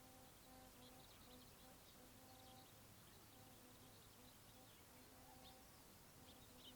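Faint riverside ambience: small birds chirping in scattered short high notes, over a faint low hum that comes and goes in short repeated notes.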